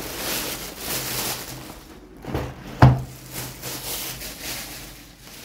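Grocery packaging rustling as items are handled and unpacked, with one sharp knock nearly three seconds in as something is set down.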